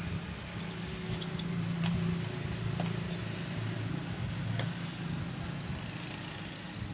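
A steady low mechanical hum, like a motor running, with a few light clicks as a plastic two-pin plug and its white cable are handled.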